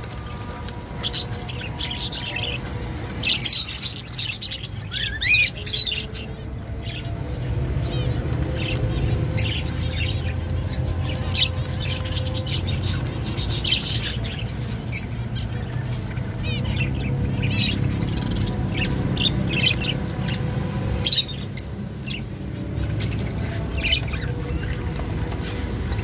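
A flock of caged budgerigars chirping and chattering, with many short, high squeaks and calls overlapping throughout. A low, steady hum runs underneath.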